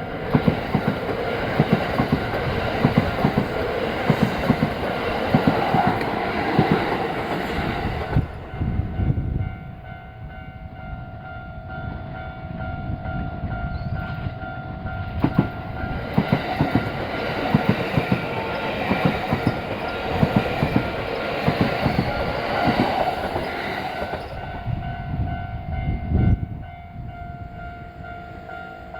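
Japanese level-crossing warning bell ringing steadily while Kintetsu trains pass over the crossing, their wheels clattering over the rail joints. The clatter dies away after about nine seconds and comes back for about ten seconds after a lull.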